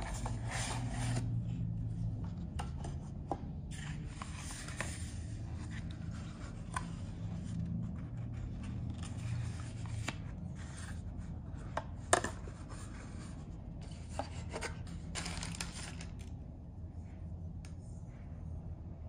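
Paperboard perfume box and its cardboard insert rubbing and scraping against each other and the hands as a glass perfume bottle is slid out and handled, with scattered light taps and clicks; one louder tap about twelve seconds in.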